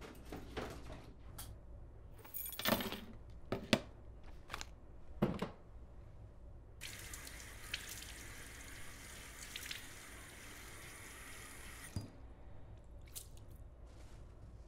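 Bathroom sink tap running over hands for about five seconds, then shut off with a click. Before it, a few sharp knocks and thuds.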